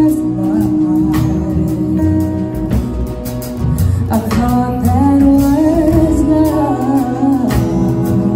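A woman sings lead with a small live band of upright bass, guitar and backing vocals. Her notes are held long and waver in pitch over a steady bass line.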